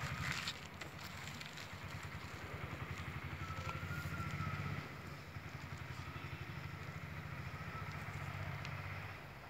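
A low steady engine rumble, with a faint wavering whine above it.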